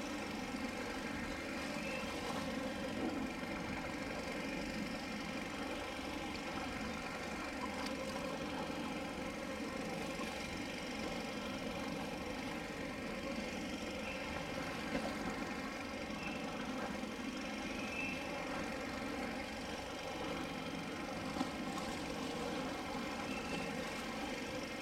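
A steady engine-like drone, an even hum of many steady tones that holds the same level throughout, with a few faint short high chirps.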